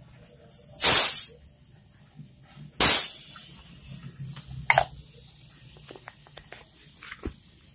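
Pressurised gas from a running refrigerator compressor hissing out through a refrigeration manifold gauge set in two short loud bursts about two seconds apart, then a briefer one, with a few light clicks near the end. A faint steady low hum sits underneath.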